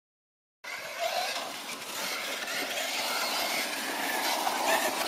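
Radio-controlled off-road truck running over dirt and leaves, its motor shifting in pitch against a steady wash of tyre and dirt noise; it starts abruptly about half a second in.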